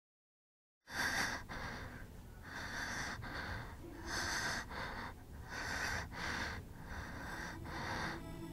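A person breathing heavily and raggedly, quick rasping breaths in and out one after another, starting about a second in, over a low steady rumble.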